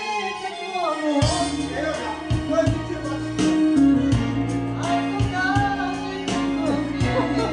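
A woman singing into a microphone over amplified accompaniment with a steady drum beat and bass, which comes in about a second in.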